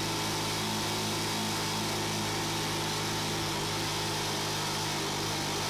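Small motorcycle engine of a Philippine trike (motorcycle with sidecar) running at a steady speed on the move, with a constant hiss of wind and road noise over it.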